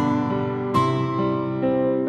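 Slow background music on a keyboard: sustained chords, with new notes struck at the start and again about three quarters of a second in.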